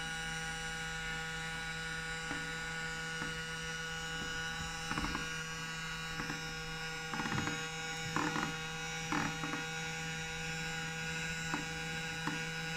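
Small robot vacuum cleaner running: a steady motor hum and whine, with several short rasping bursts about halfway through and a few light knocks.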